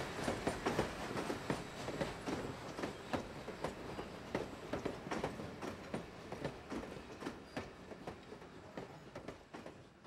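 Hand-percussion music: a dense, quick pattern of struck and rattled hits that fades steadily quieter.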